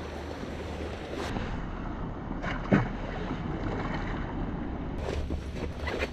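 Wind buffeting the microphone over the steady wash of sea surf, with a single sharp knock about two and a half seconds in.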